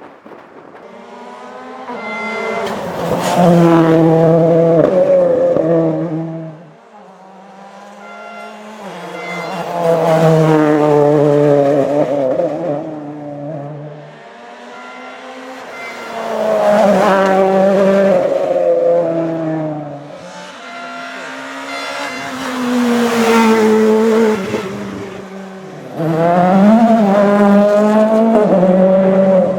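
Rally cars passing at speed one after another, about five in all. Each engine note swells as the car nears and fades as it goes, stepping up and down in pitch.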